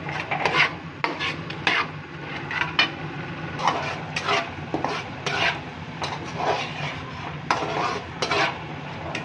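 A metal slotted spatula scraping and stirring beef and spice masala around a metal karahi in irregular strokes, roughly one or two a second, over a steady sizzle of frying in ghee: the bhuna stage, frying the spices into the meat.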